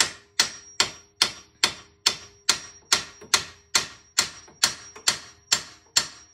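Hammer tapping on the metal front suspension: a steady run of sharp blows, about two and a half a second, each with a short metallic ring. The parts are being tapped down to free them.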